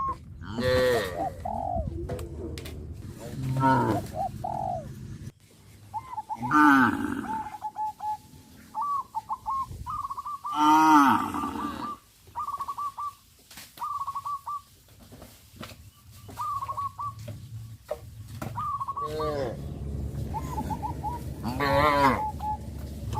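Cows mooing several times, long calls at intervals, the loudest about eleven seconds in and again near the end. In the middle stretch a bird gives short, quickly repeated calls between the moos.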